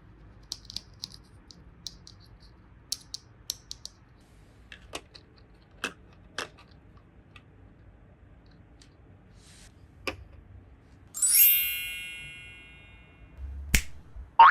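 Light clicks and taps of small plastic toy pieces being handled and set in place. About eleven seconds in, a bright chime sound effect rings and fades.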